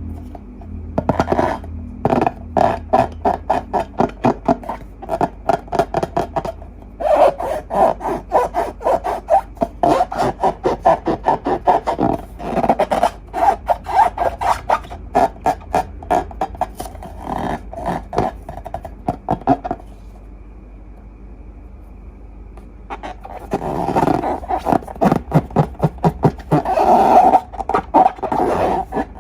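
Sticky slime being squeezed and pressed by hand, making rapid wet clicks and pops, several a second. The clicking pauses about twenty seconds in, then starts again.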